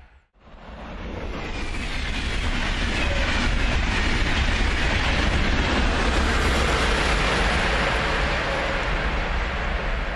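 Railjet express train passing at speed on the near track: a loud rushing rail noise that swells over the first two seconds and stays loud as the coaches go by, easing slightly near the end.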